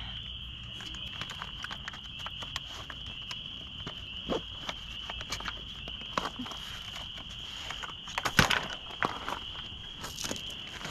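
Steady high-pitched insect chirring, with scattered light clicks and knocks from handling, the loudest about eight and a half seconds in.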